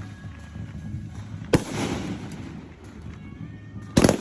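Two loud firework bangs about two and a half seconds apart, the first trailing off in a short rumbling echo.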